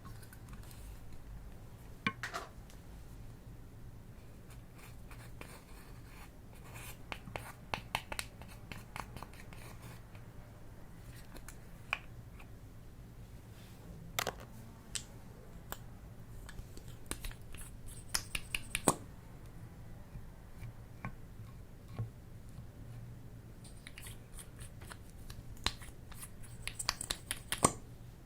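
Scattered small clicks, taps and short scratchy scrapes of hands working with small objects close to the microphone, in clusters a few seconds long, over a steady low hum.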